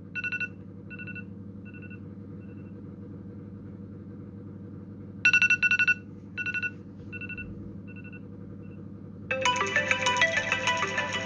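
iPhone ringtones playing. First comes an electronic ringtone of quick clusters of high beeps with fading echoes, repeating about every six seconds. About nine seconds in, a different, fuller melodic ringtone starts. A steady low hum runs underneath throughout.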